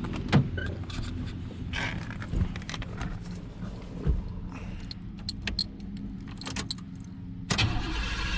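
Chevrolet 305 small-block V8 with throttle-body injection idling steadily, running on freshly fitted spark plugs, O2 sensor and coolant temperature sensor. Scattered clicks and knocks sound over it, with a louder noisy stretch near the end.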